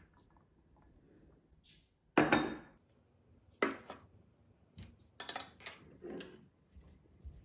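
Ceramic cup, saucer and plate being set down and shifted on a table. There is a sharp knock about two seconds in, the loudest, then lighter clinks and taps over the next few seconds.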